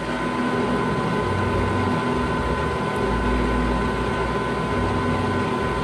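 South Bend metal lathe running steadily, with a constant whine over a machine hum, as it turns a small step pulley for groove cutting.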